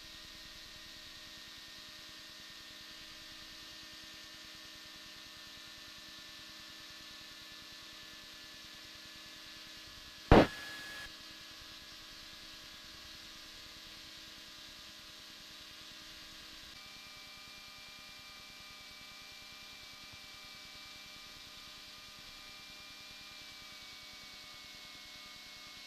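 Faint steady hiss and electrical hum of an aircraft radio and intercom audio feed, with a sharp click and about half a second of static a little after ten seconds in, like a radio transmission keyed and released.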